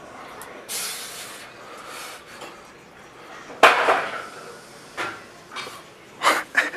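A man breathing hard after a heavy dumbbell set: a soft breath, then a sharp forceful exhale about three and a half seconds in, and two more quick exhales near the end.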